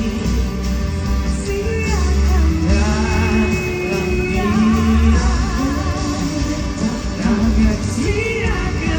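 Live band performance with sung vocals: the singing holds long notes with a wavering vibrato and slides between pitches in wordless runs over a steady bass and accompaniment.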